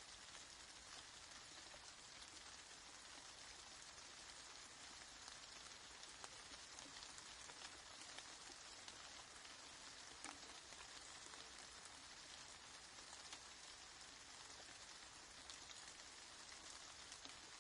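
Steady, soft rain falling, a constant hiss dotted with the small ticks of individual drops.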